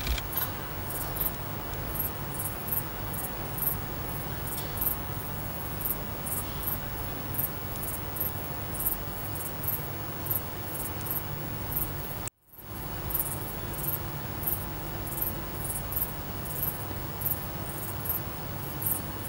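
Crickets chirping outdoors, short very high chirps about twice a second, over a steady low hum and background noise. The sound drops out for a moment about twelve seconds in, then carries on the same.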